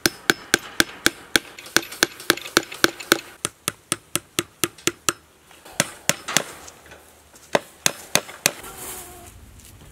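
Hammer driving fencing staples into a wooden post to fix welded wire fencing, struck in a quick steady run of about four blows a second. After about five seconds the blows become fewer and spaced apart.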